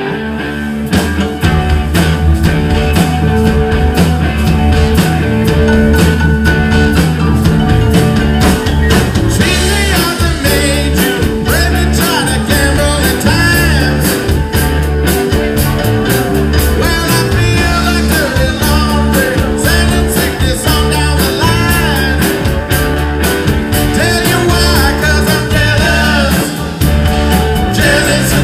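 Live rock band playing: electric guitars over a steady drum beat, with a lead singer coming in about ten seconds in.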